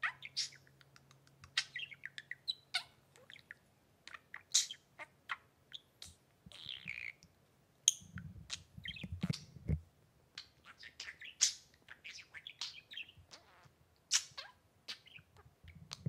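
A budgerigar chattering in a run of short, high chirps mixed with sharp clicks. A low rumble lasts about two seconds from around eight seconds in.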